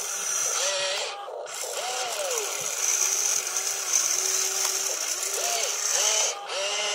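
Electric motors and gearboxes of an RC hydraulic-style excavator whining as the boom and bucket dig, each short movement a whine that rises and falls in pitch, several in a row.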